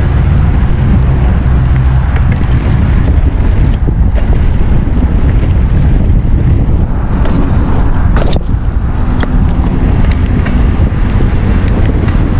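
Wind buffeting the microphone of a camera on a moving mountain bike, over the rumble of knobby tyres on a dirt trail, with scattered clicks and rattles from the bike.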